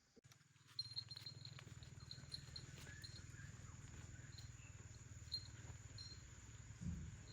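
A cat purring close by: a steady low purr that swells briefly near the end, with scattered faint high chirps.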